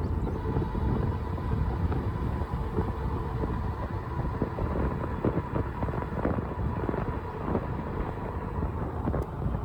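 Ride noise from an electric bike in motion: a steady low rumble of wind on the microphone and tyres on a rough road, with many small knocks and rattles and a faint steady high whine.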